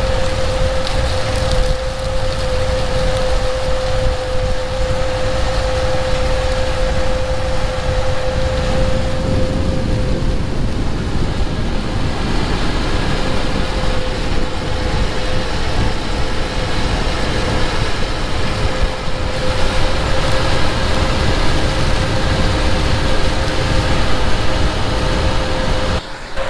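Versatile 365 tractor running steadily under load, pulling a tillage tool through corn stalks: a steady engine rumble under a constant mid-pitched tone and an even hiss.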